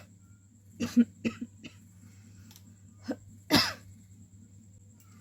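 A woman coughing: a few short coughs about a second in, then two more about three seconds in, the last the loudest.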